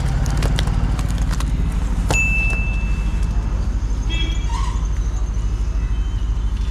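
Wind buffeting the microphone as a steady low rumble, with scattered light clicks and a short high ringing tone about two seconds in.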